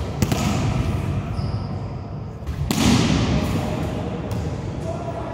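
Volleyball game in a large sports hall, the sound echoing: a few sharp knocks of the ball near the start and a louder sudden hit a little past halfway that rings out in the hall.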